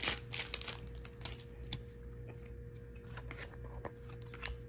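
Soft rustles and clicks of a stack of baseball trading cards being slid and flipped through by hand, busiest in the first half-second, over a faint steady hum.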